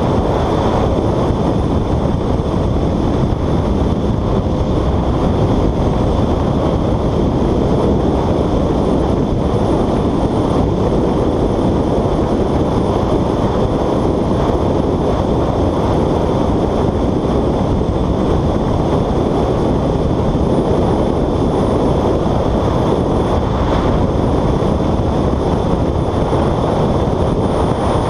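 Steady wind rush on the microphone with motorcycle road and engine noise, riding at highway speed.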